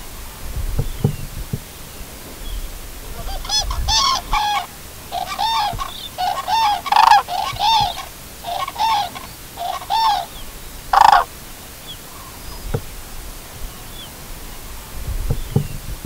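Common cranes calling in flight: a string of about a dozen trumpeting calls, one after another, from about three seconds in to about eleven seconds in, the last one the loudest.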